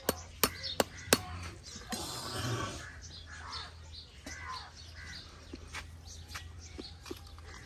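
A quick series of sharp metal clicks from a farrier's tools working the nails of an iron horseshoe on a hoof, about four in the first second. Crows cawing through the rest.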